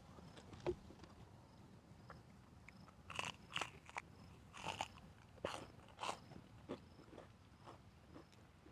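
Close-up crunchy bites and chewing of crisp food: a single knock about a second in, then a run of loud crunches in the middle, fading to quieter chewing.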